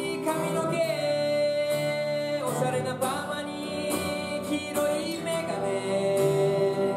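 Music with a singing voice, held notes over an instrumental backing.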